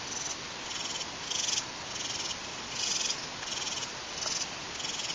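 A night chorus of small calling animals: a steady rhythm of short, high, buzzy pulses, about one and a half a second, alternating stronger and weaker, over a background hiss.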